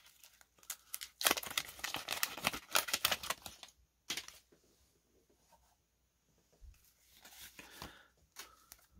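Wax-paper wrapper of a baseball card pack being torn and crinkled open, crackling for about three and a half seconds. After a quiet stretch there are faint rustles near the end.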